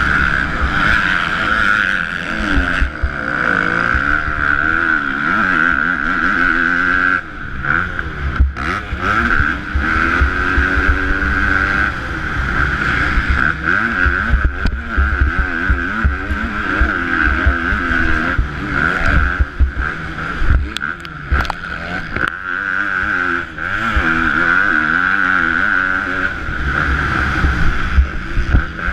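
Four-stroke 250cc KTM motocross bike engine revving hard, its pitch rising and falling again and again as the throttle is worked around the track, with rough low rumble of wind on the microphone. The engine briefly drops off about 7 seconds in and again near 23 seconds.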